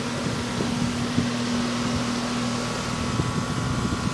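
Bryant central air conditioner's outdoor condensing unit running steadily: the condenser fan blowing, with a steady hum from its single-stage Copeland scroll compressor.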